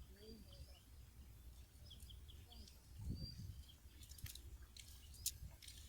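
Faint outdoor ambience: small birds giving short high chirps now and then over a low rumble. A soft low thump comes about halfway through, and a sharp click near the end.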